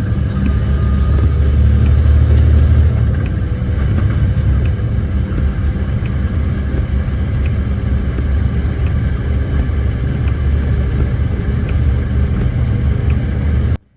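Logging truck's engine and drivetrain rumbling steadily, heard inside the cab, under a constant hiss of air from a leaking trailer brake pod escaping through a valve in the cab. The sound cuts off suddenly near the end.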